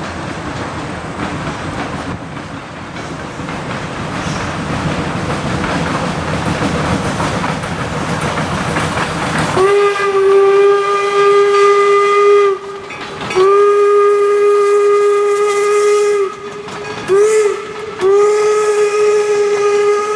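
A steam locomotive's whistle, on the 4-4-0 replica #17 "York", sounds one steady note in the grade-crossing pattern: long, long, short, long. Before it, for about ten seconds, the train's running noise rises steadily as it approaches.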